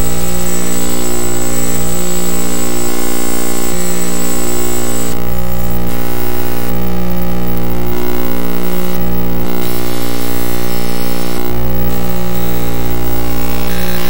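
Circuit-bent Sony video sketchpad's colour video signals heard as audio: a loud, harsh electronic buzzing drone of many stacked tones that pulse slowly, modulated by oscillators fed into its bent control inputs. A thin high whistle sounds for roughly the first third, and the hiss above cuts in and out every second or two.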